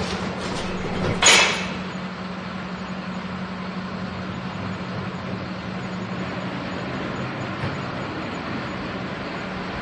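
Garbage truck engine running steadily with a constant low hum. About a second in comes one short, loud burst of hiss.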